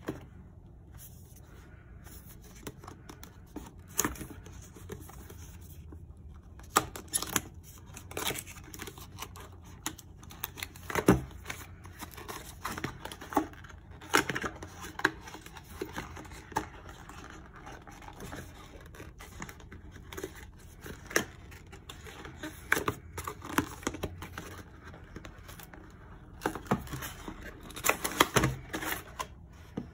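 Cardboard retail box being handled and opened: scattered paperboard rustling, scraping and sharp clicks, with a dense run of handling noise near the end as the inner box slides out of the outer sleeve.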